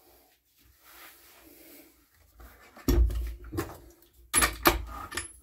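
A two-stroke petrol string trimmer and tools being handled: a faint hiss about a second in, then several clunks and knocks from about three seconds in.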